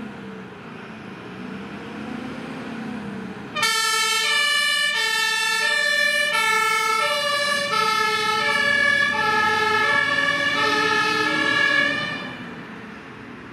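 Mercedes-Benz Atego fire engine's diesel engine pulling away, then its two-tone German siren (Martinshorn) switching on abruptly about three and a half seconds in, alternating evenly between a lower and a higher tone. The siren stops near the end, leaving the engine fading as the truck drives off.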